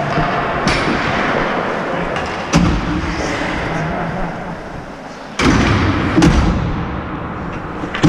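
Ice hockey play heard from the bench at the boards: a steady hiss from the rink with sharp knocks and thuds from sticks, pucks and skates on the boards and ice, once about half a second in, again near two and a half seconds, and a louder pair just after five seconds.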